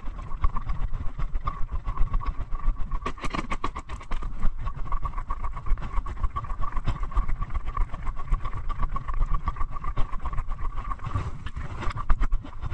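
Footsteps and knocks of a body-worn camera being carried on foot, over a heavy low rumble on the microphone, with a steady high-pitched hum throughout.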